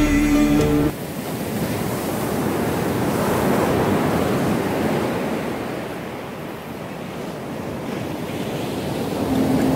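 Ocean surf washing onto a sandy beach, a steady rush that swells and eases, with wind on the microphone. A chanted song cuts off about a second in.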